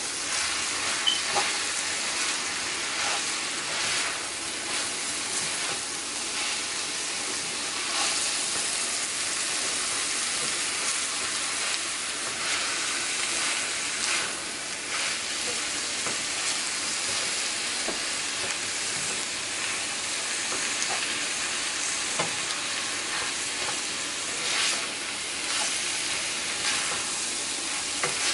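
Flaked salted cod with onions and sweet peppers sizzling in oil in a pan, with a spatula scraping and turning it every few seconds.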